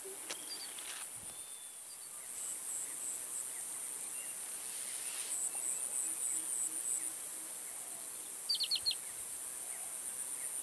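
Insects give a steady, high-pitched drone, and a pulsing trill joins in for a few seconds in the middle. Near the end there are three quick high chirps.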